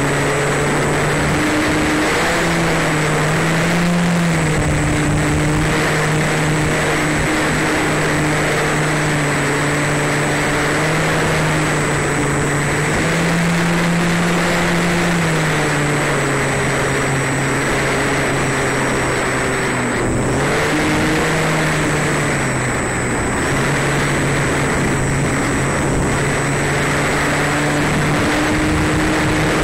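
Onboard sound of a small electric RC biplane in flight: the motor and propeller hum close up, the pitch stepping up and down several times with the throttle, over a steady rush of air and a faint steady high whine.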